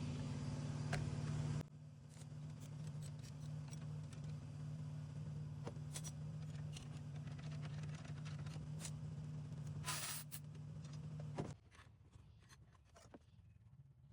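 Hand tools clicking and clinking while engine mount bolts are undone, over a steady low hum that cuts off near the end. A short hiss comes about ten seconds in.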